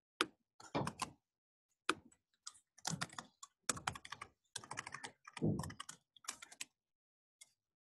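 Typing on a computer keyboard: quick runs of keystrokes with short pauses, stopping about two-thirds of the way through, with one last key press near the end.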